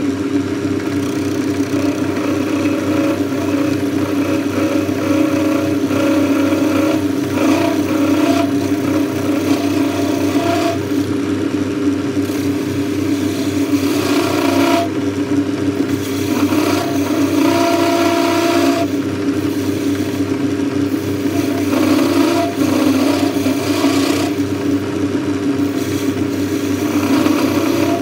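Metal lathe running at speed, turning a bar held in a four-jaw chuck: a steady geared hum, with a higher whine coming and going as the tool cuts.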